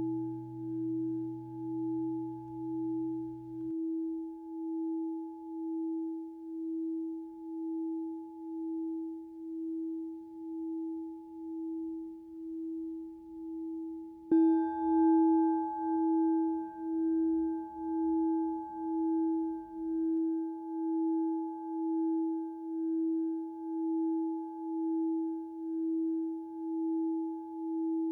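Singing bowl ringing with a slow, even wavering, fading gradually until it is struck again about halfway through and rings on louder. A lower tone underneath stops a few seconds in.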